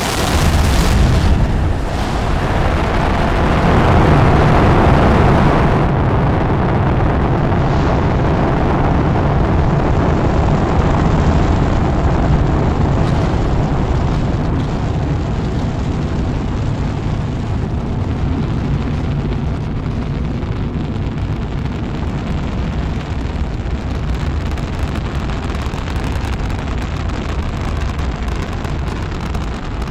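Space shuttle lifting off: the rocket engines make a loud, continuous rumble, strongest a few seconds in and then slowly fading, with a crackle coming through near the end.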